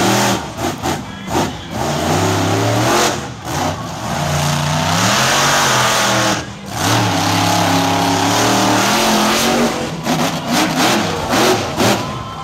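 Hurricane Force monster truck engine revving hard, its pitch climbing and falling with the throttle and dropping off briefly twice. Short knocks and bangs come near the start and again near the end.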